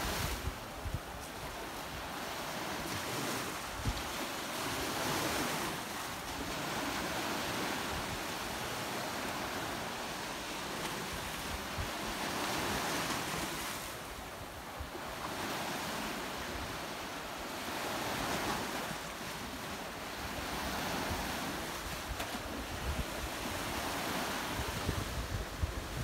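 Small Black Sea waves washing onto a sandy beach, the surf swelling and easing every few seconds.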